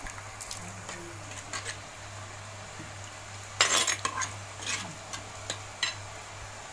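Steel ladle stirring thick prawn gravy in an earthen pot, with scattered clinks and scrapes against the pot and one louder scrape about three and a half seconds in. A steady low hum runs underneath.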